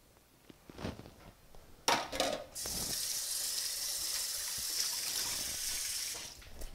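A few sharp clatters at a stainless steel kitchen sink, then the tap runs steadily for about four seconds and shuts off near the end.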